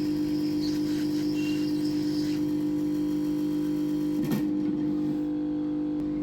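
A loud, steady hum of several fixed pitches, with a single sharp click about four seconds in.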